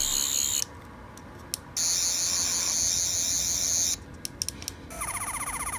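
Toy 11th Doctor sonic screwdriver playing its electronic sound effect. A high warbling buzz cuts off just under a second in, then come a few clicks, a second high buzz for about two seconds, and more clicks. Near the end a different, pulsing sound begins, repeating in short bursts.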